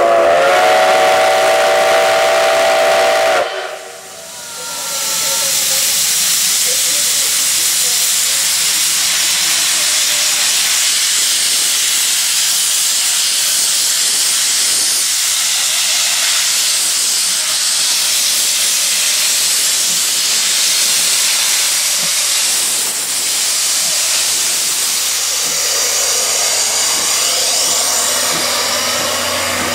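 Steam whistle of the C56 steam locomotive No. 160 sounding one steady multi-note blast of about three and a half seconds, which cuts off sharply. From about five seconds in, a loud, steady hiss of steam follows, blowing out low around the locomotive's cylinders.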